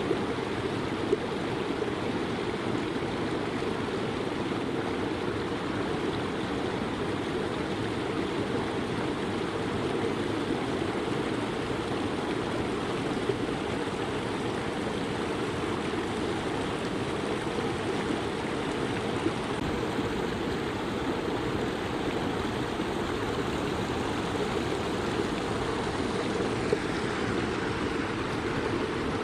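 A small stream flowing steadily, a continuous low rushing of running water with a few faint splashes.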